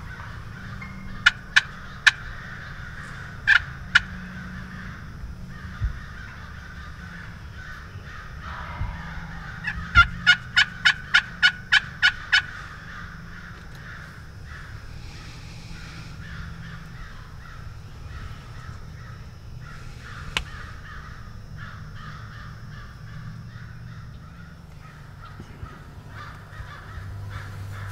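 Wild turkeys calling: a roosted gobbler gobbling and a hen calling. About ten seconds in there is a quick run of about eight sharp notes.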